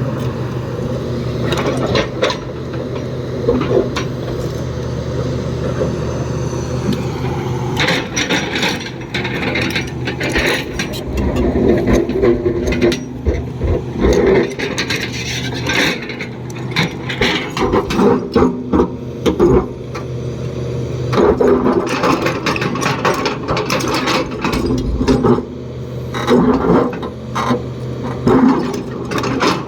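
Excavator's diesel engine running steadily under work, with repeated clanks, knocks and scraping of the bucket and machinery starting about eight seconds in.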